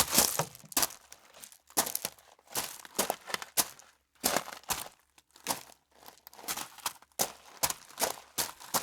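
Footsteps on stone steps: shoe soles landing and scuffing on gritty stone, a step every half second to second at an uneven pace, each with a crunchy, scraping edge.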